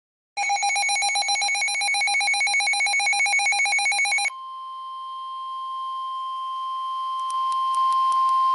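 A rapidly pulsing electronic ring, like a telephone bell, for about four seconds. It gives way abruptly to the NOAA Weather Radio 1050 Hz warning alarm tone, a single steady tone that grows louder, with a few faint clicks near the end. That tone is the alarm that comes before a weather warning is read.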